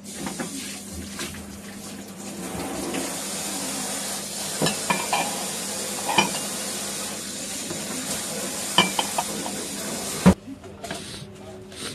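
Kitchen tap running, its stream hissing steadily into a stainless-steel sink, with ceramic plates clinking now and then. The water stops abruptly about ten seconds in, with a sharp knock.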